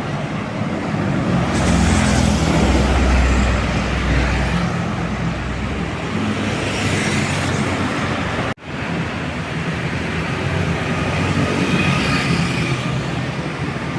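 Road traffic with a bus passing close, its engine loud and low from about a second and a half in to about four and a half seconds in. The sound drops out for an instant about eight and a half seconds in, then the traffic noise goes on.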